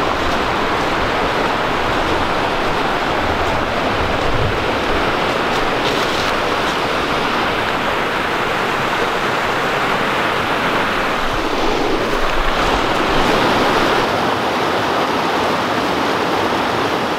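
A fast, full brook rushing over rocks and small falls: a steady, loud hiss of white water.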